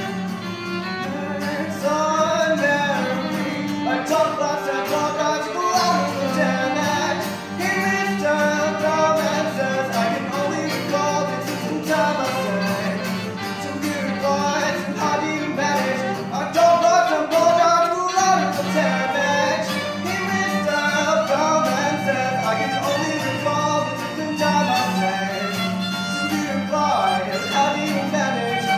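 Live acoustic guitar and violin duet: the guitar strummed as accompaniment while the violin plays a wavering melody, with a voice singing along.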